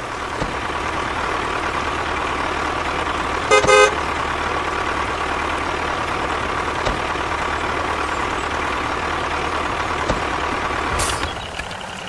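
Tractor engine running steadily, with a short horn toot about three and a half seconds in; the engine sound drops away near the end.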